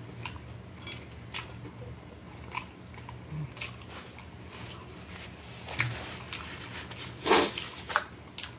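Close-up chewing of a mouthful of hot dog topped with crunchy shoestring potato sticks: wet mouth sounds with scattered small crunches and clicks, and one louder crunch near the end.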